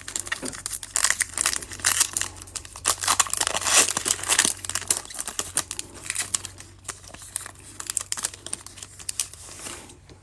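Foil trading-card pack (2021 Panini Prizm baseball) being torn open and its wrapper crinkling as the cards are slid out, thickest in the first few seconds.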